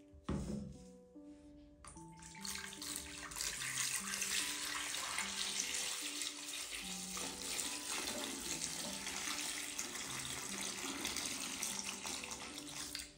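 Water running steadily from a kitchen tap for about ten seconds, starting after a short knock and stopping near the end, as potatoes are washed or the pot is filled to cover them.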